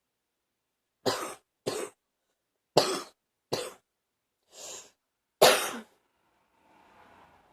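A woman coughing six times in separate short coughs, wet and productive from morning phlegm; the fifth is softer and the last the loudest. Faint breathing follows near the end.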